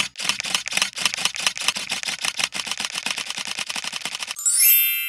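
Camera shutter clicks firing faster and faster until they run together into a rapid rattle, then a bright shimmering chime of several high tones that starts about four seconds in and fades away.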